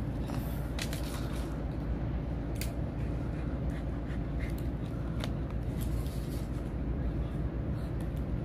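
Scattered light clicks and scrapes of a dog's claws and a stick on brick paving, over a steady low rumble.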